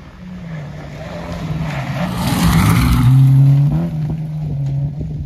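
Rally car speeding past on a gravel road: its engine note grows louder as it approaches, is loudest about two to three and a half seconds in with a rush of tyre and gravel noise, then drops in pitch as the car passes and pulls away.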